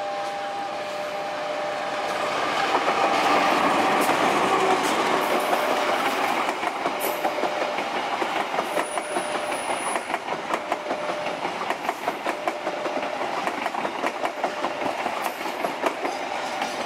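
Diesel locomotive hauling a passenger train past at speed: the engine's noise builds and peaks a few seconds in, then the coaches go by with a rapid clickety-clack of wheels over the rail joints. A steady two-note tone sounds at the start and carries on faintly.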